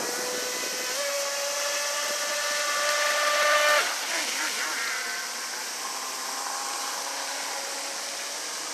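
Electric RC speedboat's water-cooled 3060kv brushless inrunner motor whining at high speed as the boat runs across the water. The whine steps up in pitch about a second in, swells, then drops away suddenly about four seconds in and goes on fainter, over a hiss of spray.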